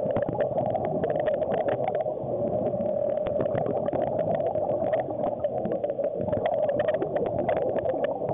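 Underwater sound picked up by a submerged camera: a steady hum with a dense patter of small clicks and crackles, the sound of water moving around the camera.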